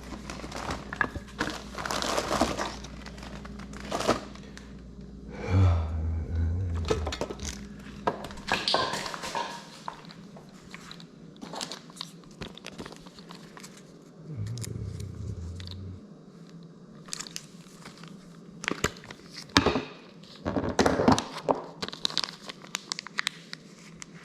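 Hands-on work on a wall charger's cover: a string of irregular clicks, taps and knocks with rustling, and two brief low hums about six and fifteen seconds in.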